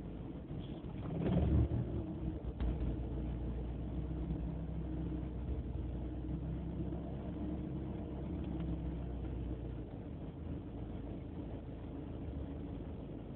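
BMW E36 318ti's four-cylinder engine running at a rough idle, with a brief swell in level about a second in. The rough idle has improved only slightly with a new idle control valve.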